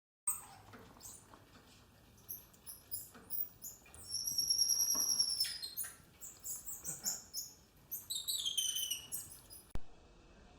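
Small animals squeaking and chirping in short, high-pitched calls, with a longer steady whistled note about four seconds in and falling chirps near the end. A sharp click comes just before the end.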